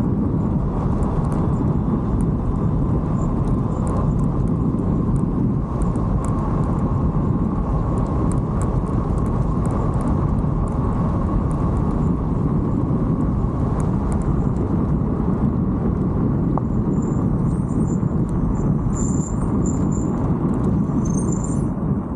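Wind rushing over the camera microphone while riding along a paved road: a loud, steady, low rumbling noise. Faint high chirps come through near the end.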